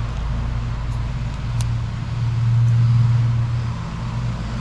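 Steady low engine rumble of a motor vehicle, swelling about halfway through as it draws near, with a couple of faint clicks.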